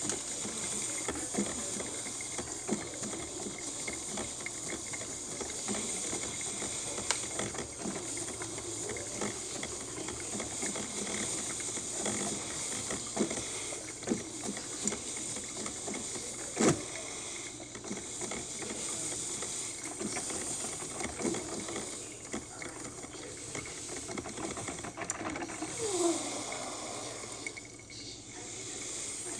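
Cuisinart coffee maker brewing: a steady hiss of steam with irregular small gurgles and crackles, and a single sharp knock a little past the middle.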